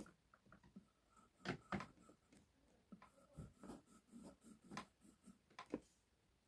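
Faint scratching of a pencil drawing lines on paper, in several short strokes with pauses between them.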